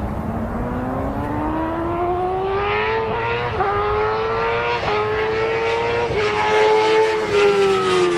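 Small motorcycle engine running, its revs climbing steadily for the first few seconds and then held high with a few brief dips.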